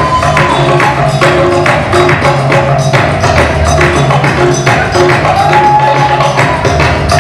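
Loud percussion-heavy dance music: a fast, even drum and shaker beat over a repeating bass line, with a long held high note near the start and again about five and a half seconds in.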